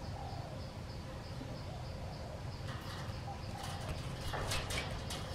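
Insect calling steadily, a high pulse about three times a second, over a low background rumble. A louder spell of rustling rises between about three and five seconds in.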